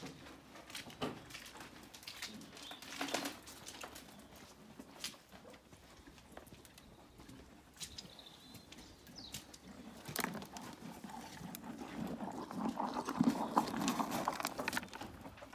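A horse feeding at a hanging bucket close by, with scattered sharp knocks and clicks. A louder, denser stretch of noise comes near the end as the animal is right at the microphone.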